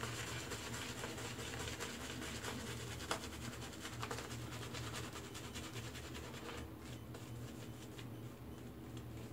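Shaving brush scrubbing soap lather onto a face, a faint, steady scratchy brushing that grows softer about two-thirds of the way through.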